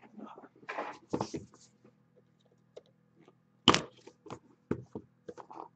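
Cardboard trading-card hobby boxes handled on a table: rustling and scraping in the first second or so, then a sharp knock about three and a half seconds in and several lighter clicks and taps after it.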